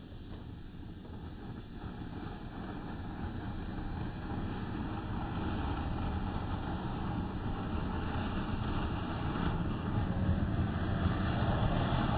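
Cone fountain firework (flowerpot) burning with a steady rushing hiss as it sprays sparks, growing steadily louder.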